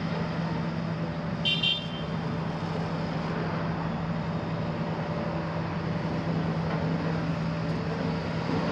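Demolition excavator's six-cylinder Isuzu diesel engine running steadily while the boom and grapple are raised. A brief high-pitched toot sounds about one and a half seconds in.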